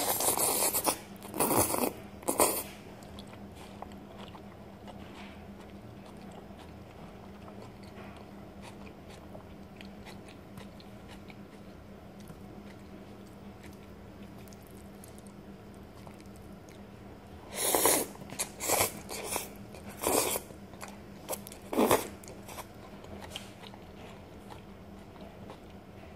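A person slurping and eating noodles close to the microphone: a quick run of three loud slurps right at the start and another run of about five a little past the middle, with only quiet mouth sounds between.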